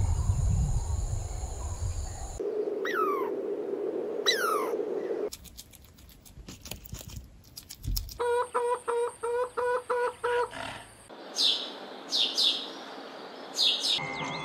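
A string of short animal calls cut one after another. It opens with a low rumble, then come two falling whistled calls, a patter of clicks, a quick run of about ten evenly spaced squeaky calls, and several high falling chirps near the end.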